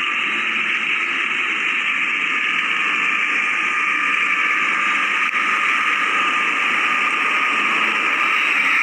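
Steady running noise of a vehicle on the move: an even hiss with a thin, steady whine through it.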